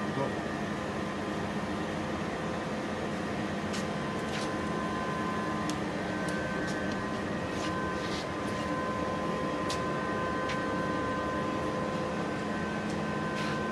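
Steady machine hum with a few fixed tones, broken by a handful of light clicks and knocks as the alloy wheel is handled on the tyre changer's turntable.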